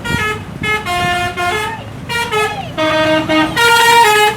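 A large road vehicle's basuri musical 'telolet' horn playing a tune: a quick run of held notes that step up and down in pitch, louder near the end, over a low engine rumble.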